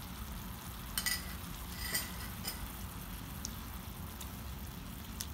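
Sauce sizzling steadily in a nonstick pan as a silicone spatula stirs it, with a few light clicks of utensils against the pan about one and two seconds in and again near the end.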